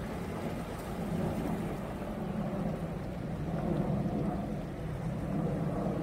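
Sea waves washing against dark shoreline rocks: a steady, deep rush of water that swells a little about a second in and again around four seconds.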